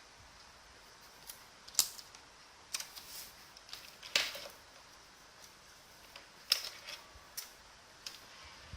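Single key presses on a mechanical keyboard with clicky blue Outemu switches: about a dozen sharp clicks at uneven intervals, not a steady typing run.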